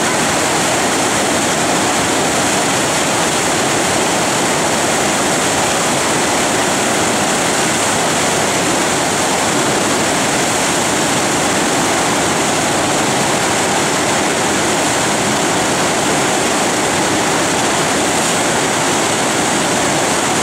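Tidal rapids rushing steadily on an extra-large flood tide: a loud, unbroken roar of churning whitewater and standing waves.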